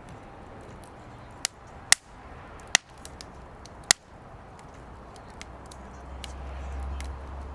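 Firewood burning in a fire pit, crackling with many small ticks and four sharp pops in the first four seconds. A low rumble rises near the end.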